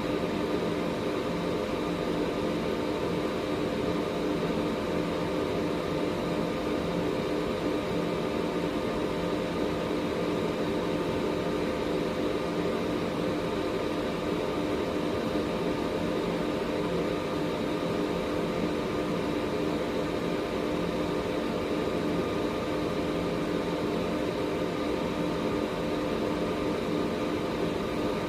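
Air purifier running steadily: an even rush of air with a steady fan-motor hum in several fixed tones.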